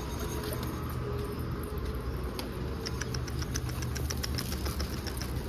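A steady low engine-like hum runs throughout. About halfway through comes a quick run of light, high clicks, several a second.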